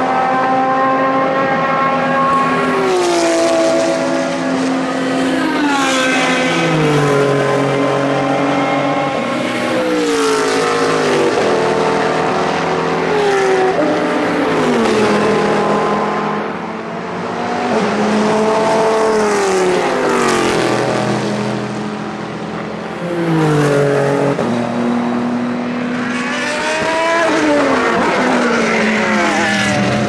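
A stream of sports-prototype and GT race cars passing close by. Their engines drop in pitch in steps as they shift down for the corner, then rise again as they accelerate away. Several cars overlap, with brief lulls about 16 and 22 seconds in.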